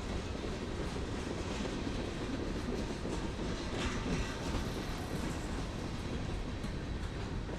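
A train rolling along the rails: a steady low rumble with a few faint clicks from the wheels.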